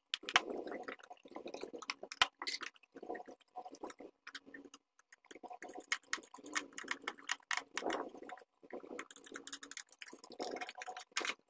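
Irregular plastic clicks, knocks and rubbing as a vacuum cleaner's plastic housing is handled and taken apart, with the sharpest clicks a little after the start and about two seconds in.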